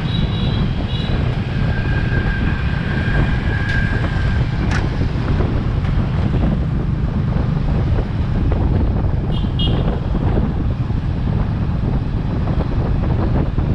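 Wind buffeting the microphone of a rider on a moving motorbike in city scooter traffic, over a steady low rumble. A few short high beeps sound near the start and again about two-thirds through.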